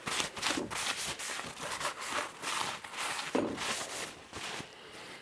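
Paper towel rubbing and crinkling in repeated wiping strokes over the ground steel face of a milling-machine vise base.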